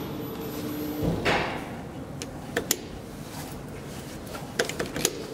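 A steady elevator hum stops about a second in, followed by a short rush of noise like sliding elevator doors, then a few sharp clicks, two of them at first and a quicker cluster near the end.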